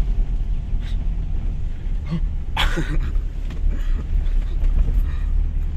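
Low, steady rumble of a two-wheel-drive Toyota HiLux driving over a rough dirt track, heard inside the cab, with scattered knocks and rattles. A brief, louder noise about two and a half seconds in.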